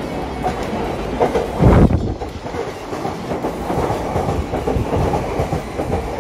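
JR East E235-series Yamanote Line electric train running into the platform close by, its wheels clacking rhythmically over the rail joints. There is a louder low rumble about two seconds in.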